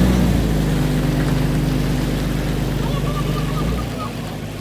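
Truck engine idling steadily with a deep rumble; the lowest part of the rumble drops away a little before the end, and the sound gets somewhat quieter.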